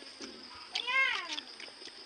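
A single short, high call about a second in, rising and then falling in pitch over about half a second.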